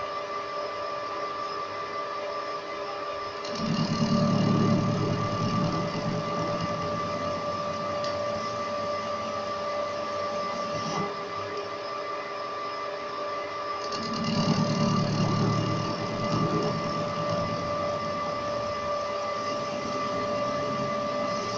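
Metal lathe running with a steady machine whine while a turning tool faces a large spinning steel disc. The cutting noise grows louder twice, about four seconds in and again about fourteen seconds in.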